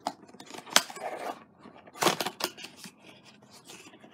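Cardboard box flap being worked open by hand against its sealing tape: sharp clicks and snaps of card, with the loudest scraping, rustling stretch about two seconds in.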